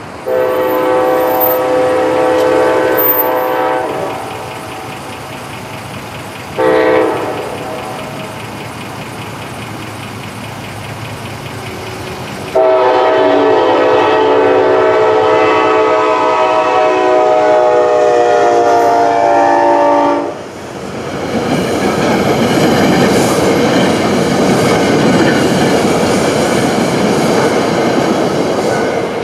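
A diesel passenger locomotive's air horn, on CDOT 231, a GE P32AC-DM, sounds a long blast, a short blast, then a long blast of about eight seconds, the crossing signal as the train approaches. About twenty seconds in, the horn stops and the train passes, with a steady rumble and clatter of wheels on rail as the passenger coaches cross.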